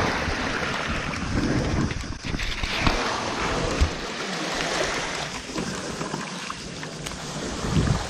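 Shallow seawater lapping and splashing around a camera held at the water's surface, with wind buffeting the microphone as a low rumble and a few small knocks.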